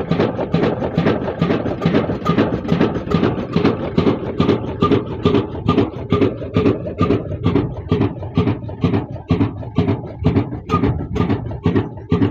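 Old single-cylinder horizontal diesel engine with large flywheels running under load, belt-driving a flour mill, with a steady, regular knocking beat of about three strokes a second.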